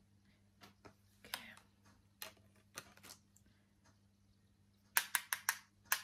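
A setting brush tapping and clicking against a compact powder palette: a few scattered light taps, then a quick run of about six sharper taps near the end.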